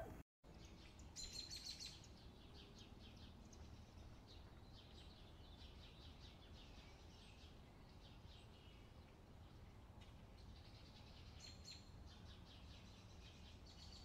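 Faint, high bird chirps in several short bouts of quickly repeated notes.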